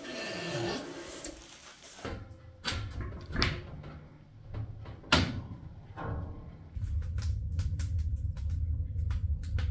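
Knocks and scraping from parts being handled and fitted during a wood-stove installation: a scrape in the first two seconds, then several sharp knocks. About two-thirds of the way in, a steady low rumble starts, with light clicks over it.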